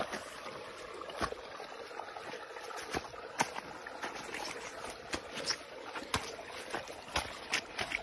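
Footsteps of two people walking on grass in sneakers and leather shoes: irregular soft thuds and swishes through the grass, one or two a second, over a steady faint hiss.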